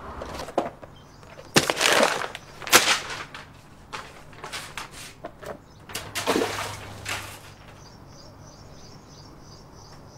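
Several short rustling and handling noises over the first seven seconds, loudest at about two and three seconds in. After that comes faint, rapid high-pitched chirping, repeating steadily.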